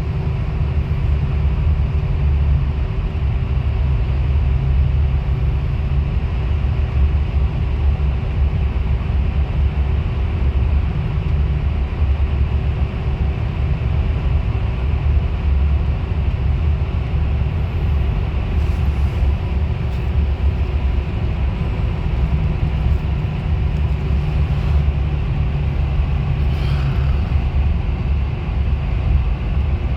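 Bus engine and road noise heard from inside the moving bus: a steady low rumble with a constant hum.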